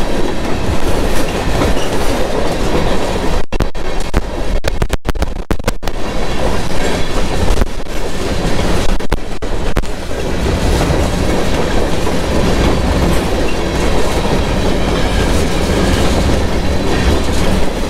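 Freight train of covered hopper cars rolling past, a steady loud rumble of wheels on rail with clickety-clack over the joints. The sound cuts out briefly several times between about 3 and 6 seconds in, the crackle of an overworked camera wind-reduction setting.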